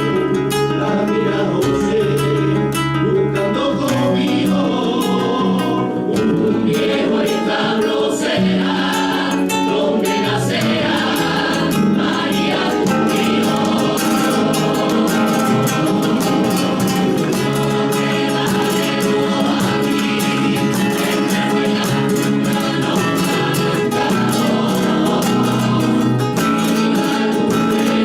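Flamenco-style Christmas carol (villancico) music: voices singing together over Spanish guitar, steady and unbroken.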